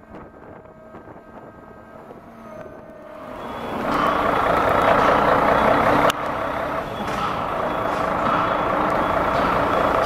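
Heavy truck's diesel engine rising from quiet to a loud, steady run over about a second, three seconds in. A single sharp knock comes about six seconds in.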